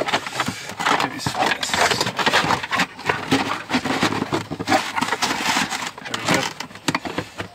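Carpeted trunk side liner being pushed and worked into place against the car body: irregular scraping and rustling with many small knocks.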